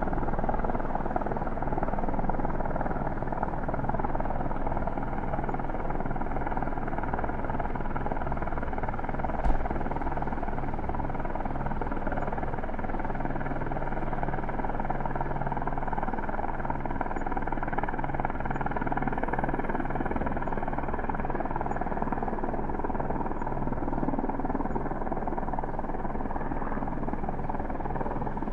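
Helicopter hovering at a distance, a steady rotor and engine noise with no change in pitch. A single short click stands out about nine and a half seconds in.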